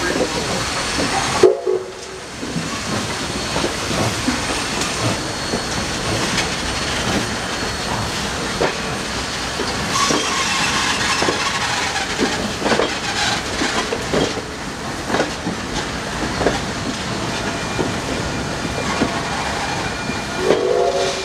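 Steel wheels of old passenger coaches clicking over rail joints as the train rolls slowly past, with a brief squeal now and then. A short pitched sound, the loudest moment, comes about a second and a half in, and another right at the end.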